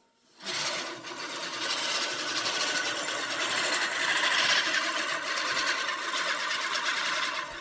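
Lawn mower running as it cuts grass, a steady mechanical sound that starts about half a second in.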